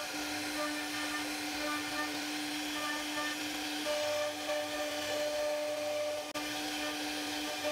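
CNC router spindle running at a steady high whine while its carving bit cuts a relief pattern into a wooden door panel, with the hiss of the bit chewing through the wood and small changes in tone as the cut varies.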